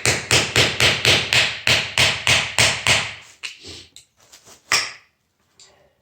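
Rapid hammer blows on a metal hydraulic door closer, about four a second for some three seconds. Then a few lighter knocks and one more hard strike, as a stuck part refuses to come out.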